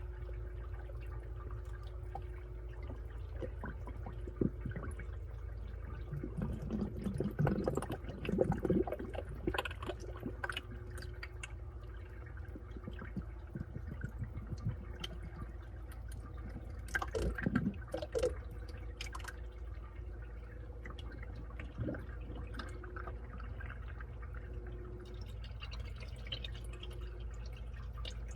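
Washing machine running with water sloshing and splashing in the drum over a steady low hum, with louder bouts of splashing several seconds in and again past halfway.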